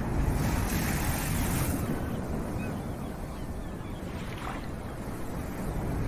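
Sea surf washing in over a deep, steady rumble, with a hissing surge of breaking water lasting about a second and a half near the start.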